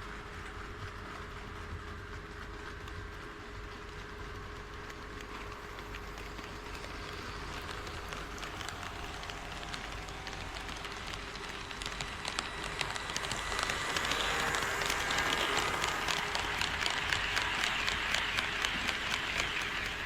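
HO scale model train running on KATO Unitrack, with fast clicking of its wheels over the rail joints. It grows clearly louder about two thirds of the way in as the train comes close and passes.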